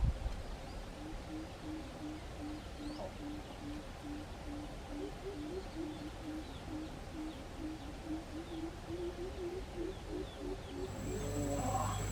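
A bird's low hooting call, a short note repeated about twice a second, with a second, slightly higher series joining partway through. There is a single knock at the start.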